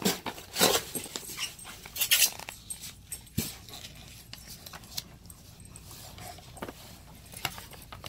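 Dogs moving and sniffing about close by, with scattered light clicks and rustles, among them the paper pages of an instruction manual being turned.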